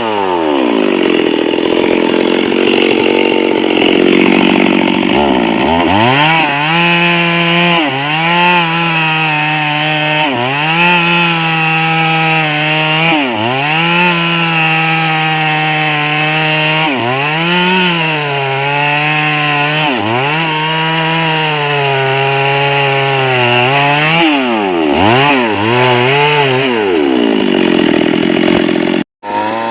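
Chainsaw engine running at high revs, its pitch dipping and climbing back again every couple of seconds. The sound cuts out for an instant near the end.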